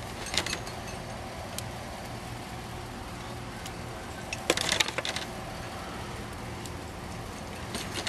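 Metal tongs clinking against a drum smoker's steel cooking grate as ribs are set down: a sharp click about half a second in, another near a second and a half, and a quick cluster of clinks around four and a half seconds in. Under it runs a steady low mechanical hum.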